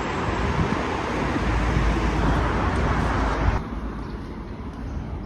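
A city bus and road traffic running, a steady noise with a deep engine rumble. About three and a half seconds in it drops abruptly to a quieter traffic background.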